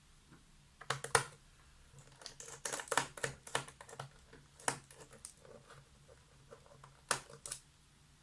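Irregular light clicks and taps of a small screwdriver and screws being handled on a laptop's plastic bottom case while its cover screws are taken out.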